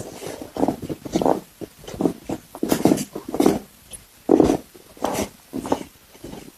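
A person making a string of short wordless vocal sounds, about nine of them, during a chiropractic adjustment of the upper back.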